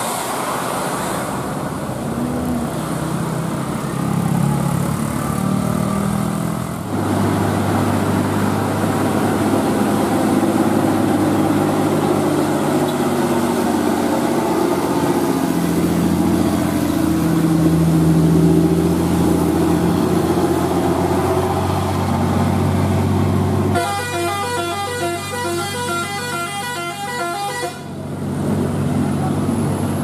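Bus engines running as buses pass. About 24 seconds in, a multi-tone 'telolet' bus horn plays a quick tune, and it sounds again briefly near the end.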